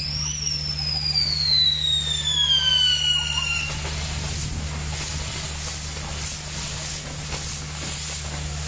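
Fireworks castle burning: a shrill whistling firework jumps up in pitch and then glides steadily down for about three and a half seconds, over the hiss and scattered crackle of pinwheels spinning and throwing sparks.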